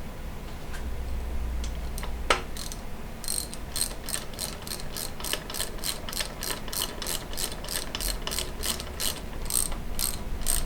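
Ratchet wrench clicking steadily, about four clicks a second, as manifold bolts are run down. A single sharp knock comes a little before the clicking starts.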